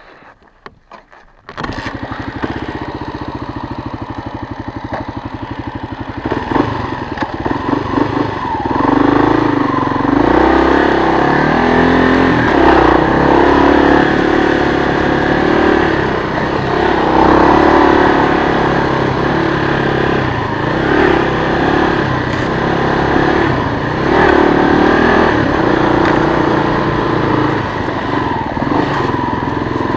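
1996 Kawasaki KLR250's single-cylinder four-stroke engine, being ridden along a dirt trail. After a quiet first second or so the engine comes in suddenly and runs steadily at low revs. From about six seconds in it gets louder and rises and falls in pitch as the rider works the throttle.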